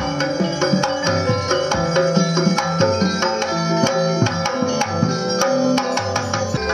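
Music with quick hand-drum strokes and plucked string notes over a steady held tone.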